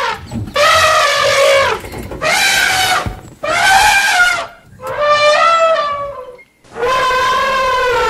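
Elephant trumpeting: a run of about five loud calls, each a second or so long with short gaps between, several sliding down in pitch as they end.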